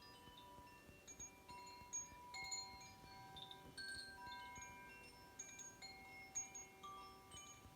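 Faint metal chimes ringing, with light, irregular strikes setting off new notes that overlap and hang on as clear, steady tones.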